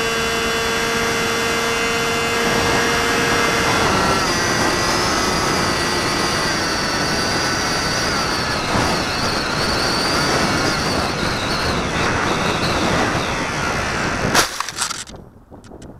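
Onboard sound of a Delta Ray RC plane's electric motor and pusher propeller whining in flight, with air rushing over the camera; the motor's pitch shifts about four seconds in and wavers after that. Near the end comes a sharp thump and scrape as the plane touches down in the grass, and the sound drops away sharply.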